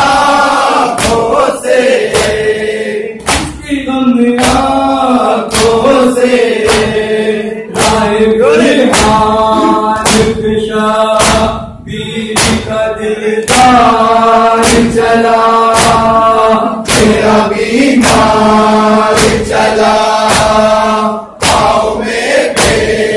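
Male voices chanting a noha, a Shia lament, together, over a steady beat of matam, open palms striking chests, about every two-thirds of a second.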